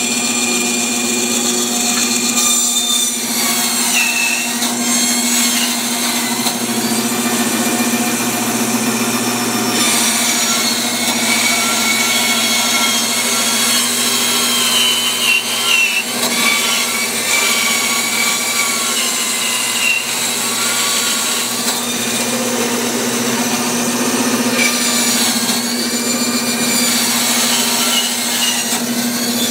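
Bandsaw running and cutting through a thick oriental chestnut slab. A steady motor hum runs under a higher whine from the blade in the wood, which wavers in pitch as the slab is fed along a curve.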